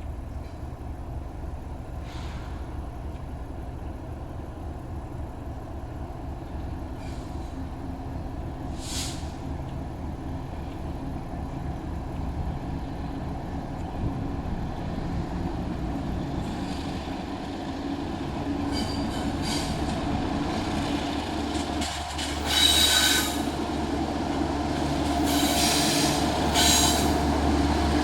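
CSX train rolling past, its low rumble growing steadily louder, with short bursts of high wheel squeal twice in the last few seconds.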